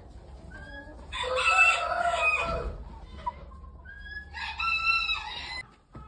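A rooster crowing twice, each crow a little over a second long: the first about a second in, the second near the end. A few faint short calls come in between.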